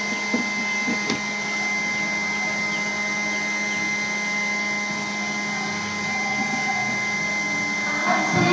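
Steady electrical hum with a thin high whine and a hiss, from some running device. There are a few faint clicks in the first second or so.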